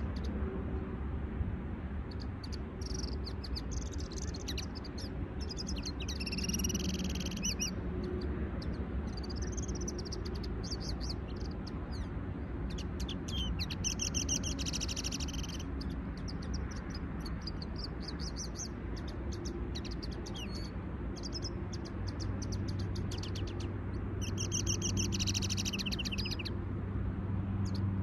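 Caged finches singing: three bouts of rapid high twittering song, each about two seconds long, with scattered short chirps in between, over a steady low hum.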